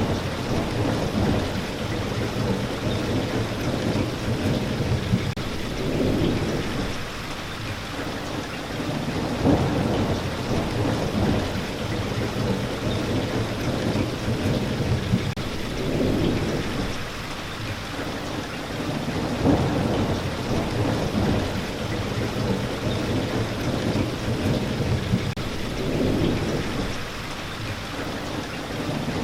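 Steady rain falling, with low thunder rumbling and swelling up again every few seconds.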